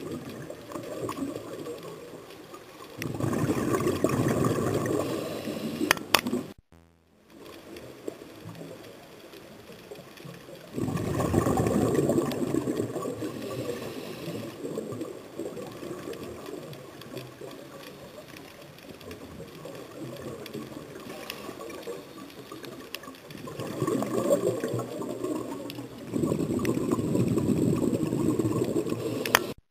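Scuba regulator exhaust bubbles gushing past the underwater camera in several long bursts, one for each exhaled breath, with a muffled underwater hiss between them.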